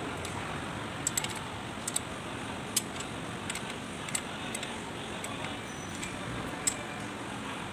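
Irregular sharp metallic clicks and clinks of a steel hex key working a bolt on the propeller-shaft flange, over a steady background hiss.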